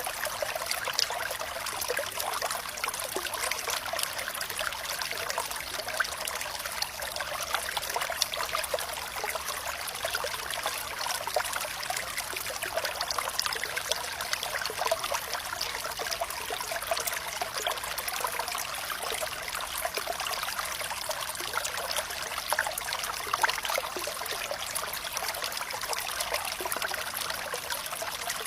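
Water flowing and trickling steadily, with many small splashes and drips over a light rush and no deep rumble.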